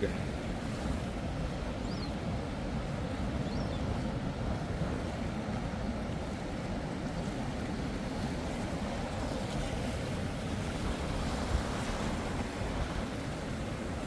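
Steady rush of ocean surf breaking on the shore, with wind buffeting the microphone.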